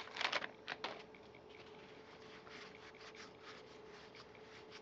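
Freshly opened pack of baseball cards flipped through by hand: a few sharper card clicks at first, then faint soft ticks and rustles as each card slides over the next, over a faint steady hum.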